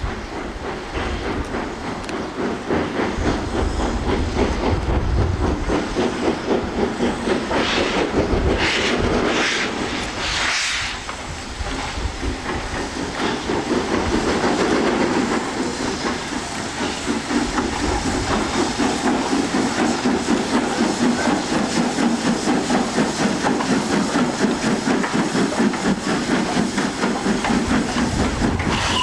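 LNER V2 class No. 4771 Green Arrow, a Gresley three-cylinder 2-6-2 steam locomotive, pulling its train away with a rapid, steady exhaust beat. Bursts of steam hiss come about eight to eleven seconds in.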